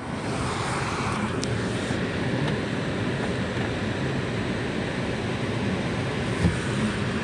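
Steady noise of traffic, a motor vehicle running close by.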